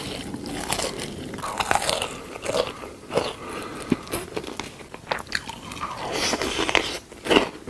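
Close-miked biting and chewing of fresh strawberries: irregular wet crunches and mouth clicks.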